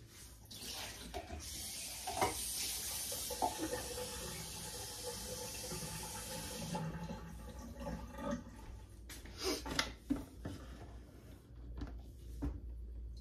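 Kitchen sink tap running while something is rinsed under it. The water is shut off about seven seconds in, and a few light knocks follow.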